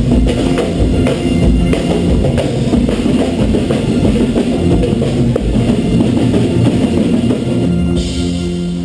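Live band music played loud: a drum kit keeping a driving beat with bass drum, under bass and guitar. Near the end the drums drop away and a held chord rings on.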